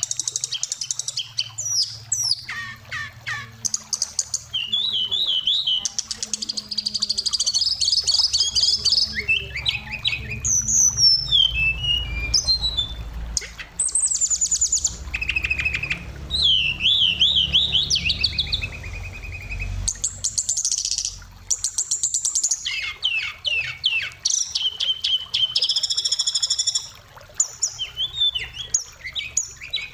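Oriental magpie-robin singing a long, varied song of whistles, trills, glides and rapid repeated notes, full of phrases mimicked from other birds, broken by short pauses. A steady low rumble runs underneath.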